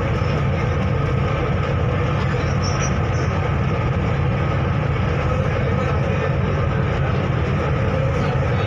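Steady low drone of a river ferry's engine running under way, with a few faint constant hum tones over it.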